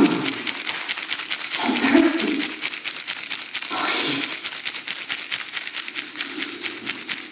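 Background song with a fast, steady ticking beat and a few held sung notes; it cuts off suddenly at the end.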